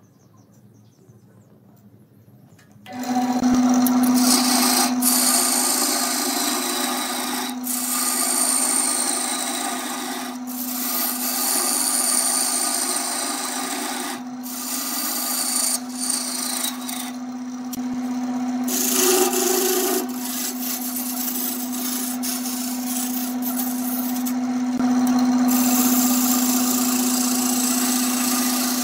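Wood lathe running with a steady motor hum while a hand-held turning tool cuts into a spinning wooden blank, a rough scraping hiss of shavings coming off. The sound starts suddenly about three seconds in and is broken by several short pauses where the tool lifts off the wood.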